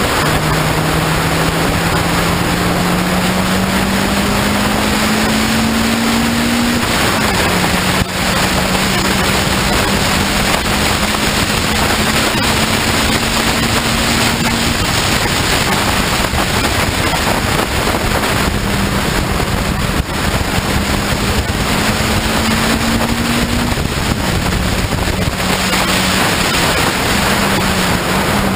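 Morgan 4/4's four-cylinder engine racing flat out, heard from the open cockpit under heavy wind noise on the microphone. The engine note climbs, drops sharply at a gear change about seven seconds in, climbs slowly again, drops once more about three-quarters of the way through and wavers near the end.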